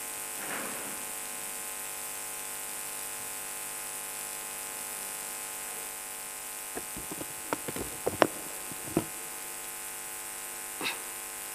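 Steady electrical hum and hiss from a public-address system, with a few short knocks and taps in the second half as the lectern microphone is handled.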